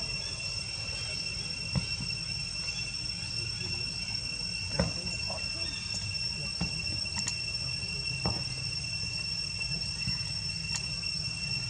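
Insects droning steadily at two high pitches over a low background rumble, with a few sharp clicks, the loudest about five seconds in.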